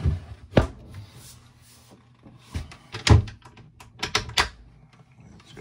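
Several sharp wooden knocks and clunks: a wooden cabin-sole floor hatch being set back into place and a locker latch being handled. The loudest knock comes about three seconds in, followed by a quick cluster of clicks.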